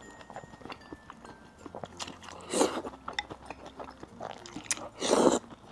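A person slurping strands of hot-pot sauerkraut coated in sesame sauce off chopsticks and chewing, with small wet mouth clicks between two louder slurps, about two and a half seconds in and again near the end.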